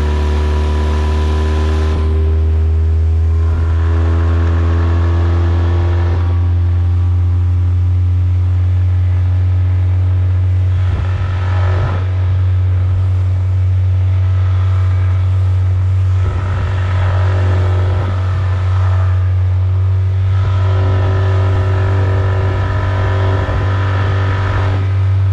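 Tohatsu 9.8 hp four-stroke outboard running steadily at planing speed, its low engine note mixed with the rush of wind and water.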